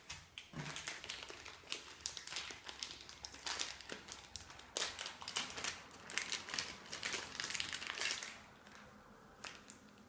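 Packaging being handled and unwrapped, with dense crinkling and small clicks that die down about two seconds before the end.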